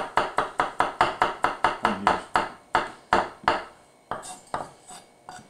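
Chef's knife chopping garlic on a wooden cutting board: a fast, even run of knocks about five a second, which stops after about three and a half seconds, followed by a few scattered taps.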